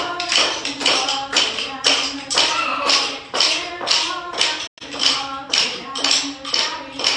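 A steady beat of sharp taps, about two a second, under a singing voice.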